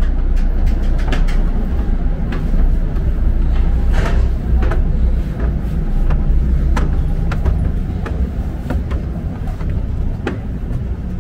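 Steady low rumble of a vehicle in motion, with scattered sharp clicks and knocks over it.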